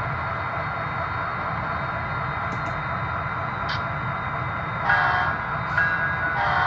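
Model diesel locomotive running with a steady rumble, then its sound-system horn sounding: a blast about five seconds in, a short one, and a longer one starting near the end.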